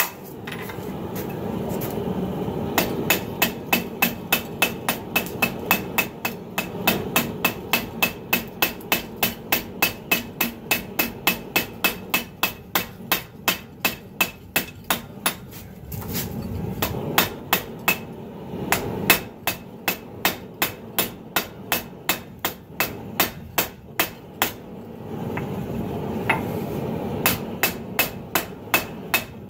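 Forging hammer striking a red-hot 80CrV2 steel blade on a 66 lb cast steel anvil, about two to three sharp ringing blows a second with a couple of brief pauses, as the blade is drawn out to form its tip and belly. A steady rushing noise runs underneath.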